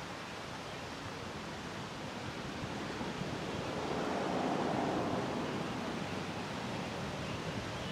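Wind blowing in a steady rush, swelling about four to five seconds in and easing off again, in the gusty air ahead of a severe thunderstorm.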